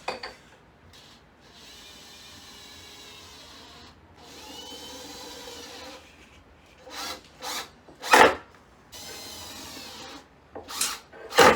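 Power drill running in stretches of a couple of seconds, interspersed with several sharp knocks, during furniture assembly. The loudest knocks fall about eight seconds in and near the end.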